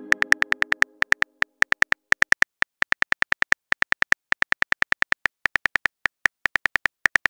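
Smartphone keyboard typing clicks: quick runs of short, sharp ticks, several a second with brief pauses, as a text message is typed. The ring of a message chime fades out in the first second.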